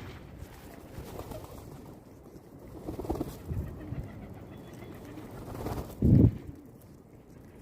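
Pigeons cooing in low calls, a few around three to four seconds in, with a brief, louder low sound just after six seconds.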